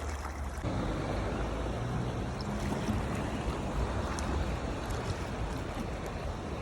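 Sea water washing and surging, with wind rumbling on the microphone; it swells up about half a second in and then holds steady.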